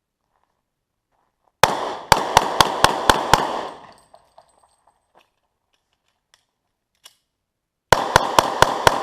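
Semi-automatic pistol fired in two rapid strings, about seven shots at roughly four a second, then a pause of several seconds and a second string of five or six shots, each crack followed by a short echo.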